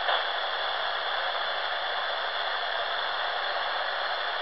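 Steady hiss of static from a Silvercrest SWED 250 A1 shortwave radio tuned to 14.215 MHz in FM mode, with no voice on the channel.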